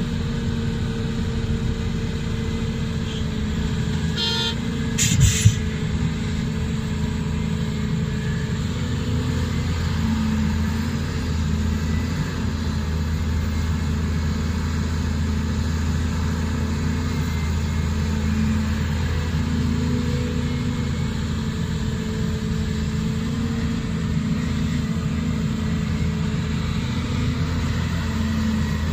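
Diesel engines of a Volvo crawler excavator and a ten-wheel dump truck running steadily while the excavator loads the truck, with brief horn toots about four to five seconds in.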